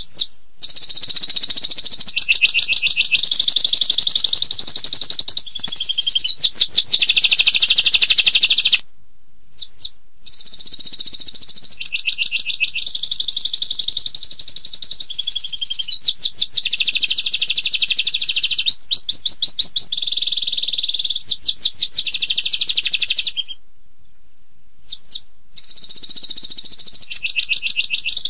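Domestic canary singing long, loud phrases of fast rolling trills and quick sweeping notes, broken twice by short pauses of a second or two.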